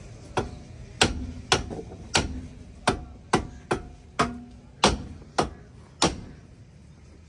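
Hammer striking metal in about eleven blows, roughly two a second, some leaving a short ring, then stopping about six seconds in.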